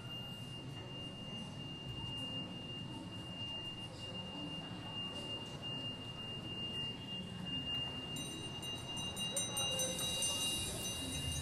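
Contemporary music for recorder orchestra and electronic tape: a single steady high tone held over a low, noisy background, with further high tones and a bright shimmer joining about eight seconds in.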